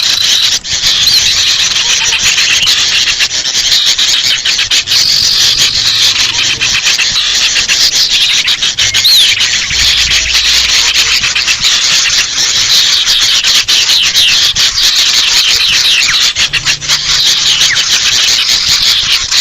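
Dense, continuous agitated chattering of sooty-headed bulbuls (kutilang) mixed with agitated sirtu calls, high-pitched with many quick chirps and ticks. This excited alarm chorus is a lure recording meant to draw small wild birds in.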